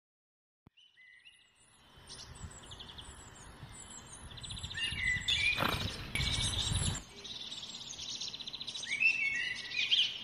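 Small birds chirping and trilling, with a quick repeated high chirp, over a steady background of noise; it starts after about two seconds of silence. Midway a louder rush of noise lasts about a second and a half.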